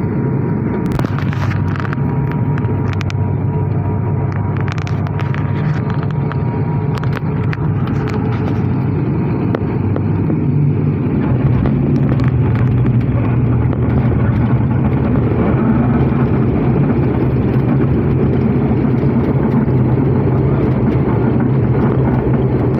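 Cabin noise of a turboprop airliner during landing: a steady engine and propeller drone with light rattles and knocks over the first several seconds, the drone growing louder about halfway through.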